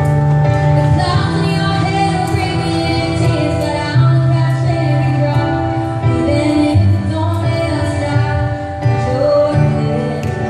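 A woman singing live into a handheld microphone over musical accompaniment with a bass line, amplified through a sound system.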